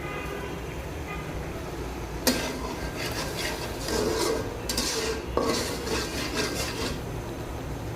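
A spoon stirring and scraping in a cooking pan, with clicks of metal on metal, from about two seconds in until about seven seconds, over a steady low hum.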